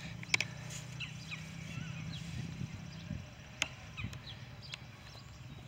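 Quiet outdoor background: a low steady hum that fades out about three seconds in, a few sharp clicks, and scattered short high chirps.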